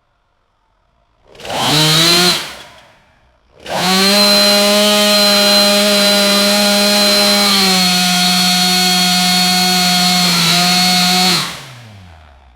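Two-stroke gas chainsaw revving: a short throttle blip about a second and a half in, then a long steady high-speed run from about 4 s that dips slightly in pitch near 8 s. Near the end the throttle is released and the engine winds down with falling pitch.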